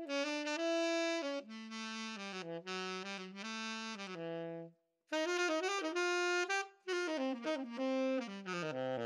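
Solo tenor saxophone playing a melodic phrase of held notes. The first few seconds are on a Cannonball Stone Series professional tenor; after a short break about five seconds in, the same line is played on a Roy Benson TS-101 student tenor.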